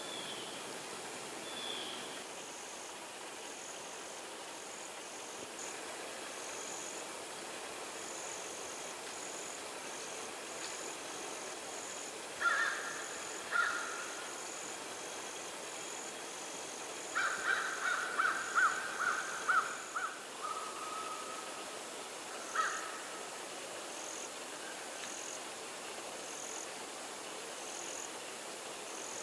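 Birds calling in woodland: a few loud calls from about halfway through, among them a quick run of about six, over a steady stream of faint, short, high-pitched notes.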